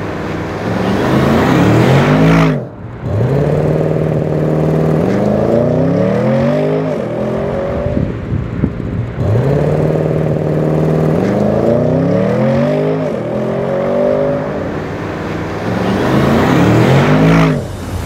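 Audi S8's 4.0 TFSI twin-turbo V8 accelerating hard, in two runs. In each run the pitch climbs and drops back at every quick upshift of the eight-speed automatic.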